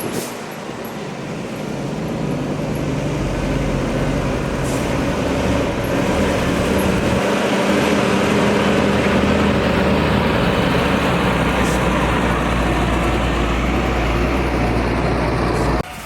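Heavy diesel engine of road-construction machinery running steadily, growing louder over the first few seconds, with a few short hisses; it cuts off abruptly near the end.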